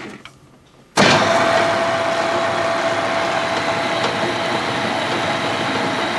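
Metal lathe switched on about a second in and running steadily, with a faint steady tone in its noise. It is spinning a 7075 aluminum link bar onto a tap that a wrench holds still, threading the drilled end.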